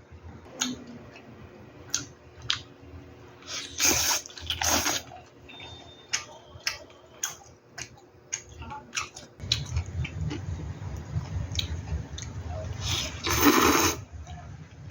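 Eating sounds at a meal: light clicks of utensils against dishes, with loud wet slurps about four seconds in, again just after, and near the end.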